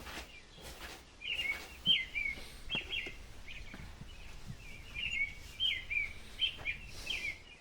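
Small birds chirping, many short twittering calls in quick runs throughout, with a few faint knocks between them.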